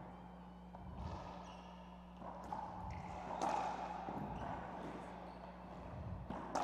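Racquetball rally: the hollow rubber ball cracking off racquet strings and slapping the walls and hardwood floor, a sharp hit every second or so, with sneakers squeaking on the court.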